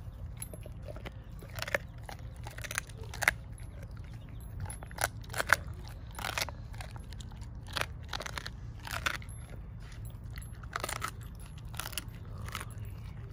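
Doberman chewing a raw, skinned squirrel carcass: about ten sharp, irregularly spaced crunches as its teeth bite down, the loudest about five and a half seconds in.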